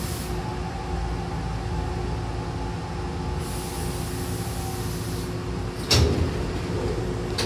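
Inside a Hankyu train car coming to a stop: a steady low running rumble with a faint whine that drops slightly and fades out. About six seconds in comes a sudden burst of air as the pneumatic sliding doors open, followed by a few sharp clicks.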